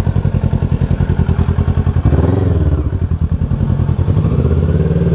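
Motorcycle engine idling with a rapid pulsing beat, revved briefly about two seconds in.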